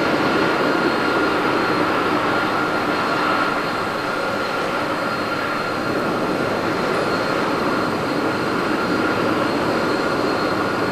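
Boeing 747-400 jet engines running at low taxi power: a steady high whine over a continuous rushing noise.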